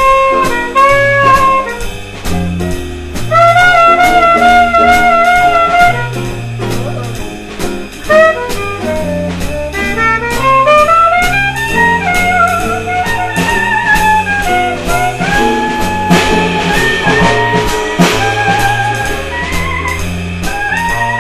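A small band jamming: a horn plays a wavering lead melody with smooth slides up and down in pitch, over bass notes, an acoustic guitar and a drum kit with cymbals.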